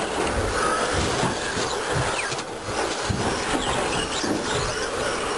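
Several 1/10-scale electric RC stadium trucks racing on a carpet track. Their motors whine, rising and falling in pitch as they speed up and slow down, over tyre noise and scattered knocks of the trucks hitting the track.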